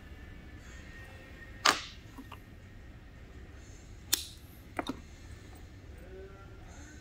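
Pliers working a stainless steel orthodontic clasp wire, giving short sharp metallic clicks: a loud snap just under two seconds in, another a little after four seconds, then a quick pair of clicks.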